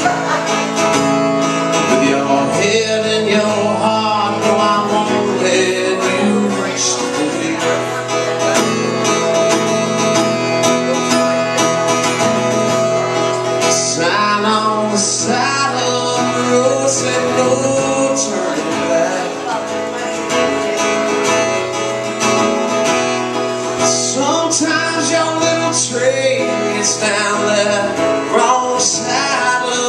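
Sunburst acoustic guitar played live by a solo performer, a continuous run of plucked and strummed chords.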